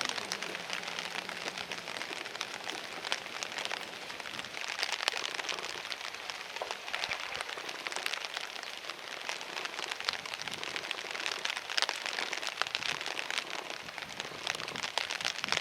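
Steady rain pattering close to the microphone: an even hiss thick with small drop ticks.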